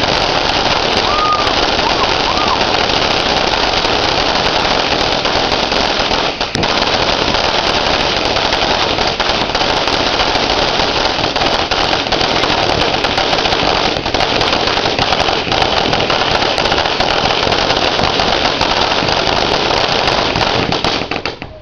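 Tiki ground fountain firework burning: a loud, steady spray of hissing with sharp crackles all through it, which cuts off suddenly near the end as the fountain burns out.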